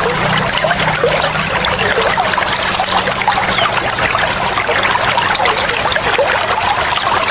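Water splashing and trickling steadily, like a small stream or fountain, with small birds chirping over it in short repeated high calls.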